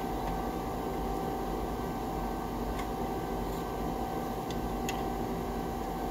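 Steady machine hum with a constant tone, and a few faint clicks as the pieces of a crushed plastic turner's cube are set down on the steel plate of a hydraulic press.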